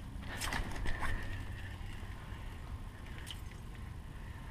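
Water splashing and dripping as a crappie is pulled up out of the ice-fishing hole. A quick flurry of spattering clicks comes about half a second in, then lighter drips, over a steady low rumble.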